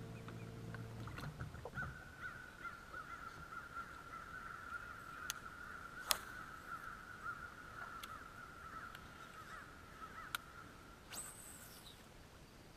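A boat's electric trolling motor hums and cuts off about a second and a half in. A faint, steady, high-pitched warbling chorus of wildlife follows, broken by a few sharp clicks, the loudest about six seconds in.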